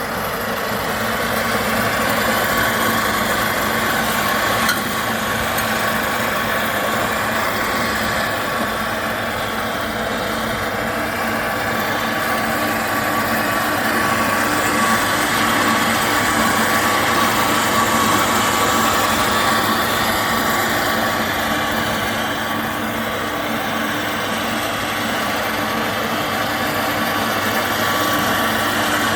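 30-inch electric cylinder (reel) lawn mower running steadily, a constant motor hum with a steady whine over it.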